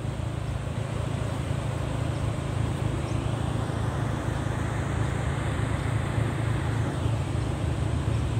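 Wind rumbling on the microphone over the steady wash of small breaking surf.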